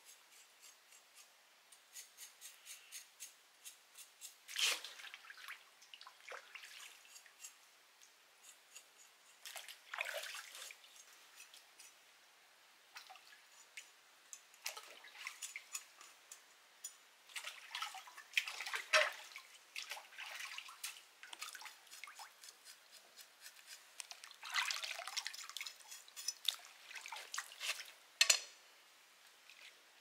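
Light splashing and dripping of stream water as something is rinsed in a shallow rock pool, with runs of short quick knife scrapes. The louder splashes come about 5, 10, 19 and 28 seconds in.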